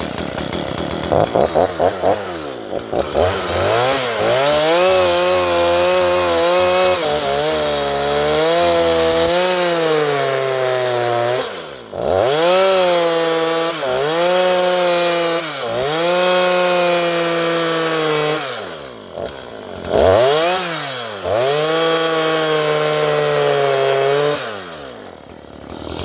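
Stihl MS 162 two-stroke chainsaw ripping a thick wooden fence post lengthwise, its engine pitch sagging under load and rising again as the cut goes. Several times the throttle falls back briefly and the engine revs back up.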